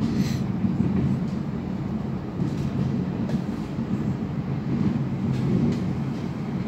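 Running noise of an NS VIRMm double-deck electric train (set 9411) at speed, heard inside the passenger compartment: a steady rumble with a low hum. A short high-pitched sound comes right at the start.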